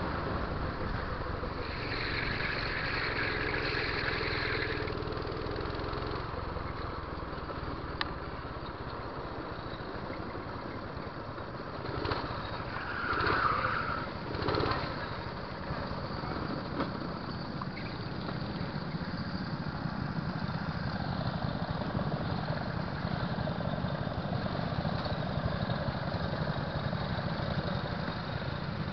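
Go-kart engines running at low speed and idling, a steady low drone. A higher steady tone sounds for about three seconds near the start, and a brief louder swell comes about halfway through.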